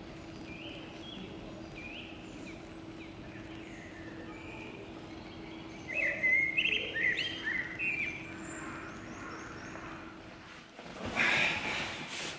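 Birds chirping in short repeated calls, busiest and loudest about six to eight seconds in, over a steady low hum. About eleven seconds in the hum stops and a brief burst of rustling follows, bedding moving.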